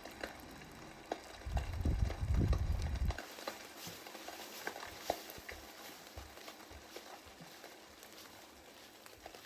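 A hiker's footsteps on the trail with scattered light taps and patter, in falling rain mixed with snow. A low rumble of wind on the microphone about one and a half to three seconds in.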